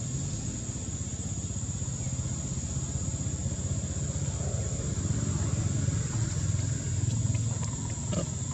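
A steady low rumble with a constant thin high-pitched hum above it, getting a little louder about halfway through.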